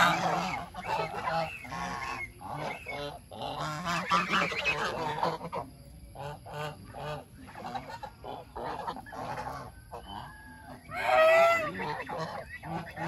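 Geese honking, many short calls overlapping one another, with a louder burst of honks about eleven seconds in.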